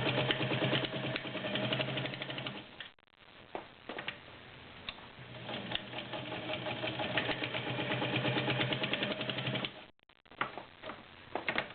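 Kenmore Model 50 heavy-duty sewing machine with a 1.2 amp motor, stitching through six layers of denim at a steady, rapid stitch rate. It runs in two spells, a short one and then a longer one after a brief stop, and ends in a few scattered clicks.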